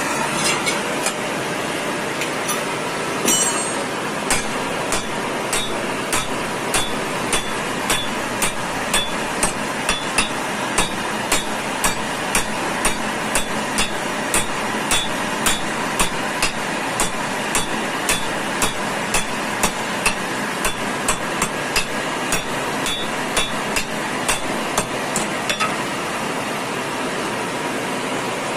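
Hammer blows on hot steel, about two a second, with a short metallic ring on some strikes, as a pickaxe head is forged. A steady machine noise runs underneath.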